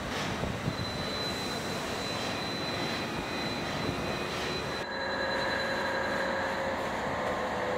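Steady rushing mechanical drone of shop machinery, with a thin high steady whine on top. About five seconds in, the upper hiss drops away and a couple of lower steady tones come through.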